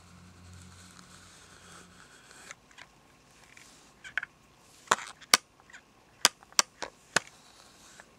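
A faint low hum stops about two seconds in. From about four seconds in come around eight sharp clicks of hairdressing tools being handled.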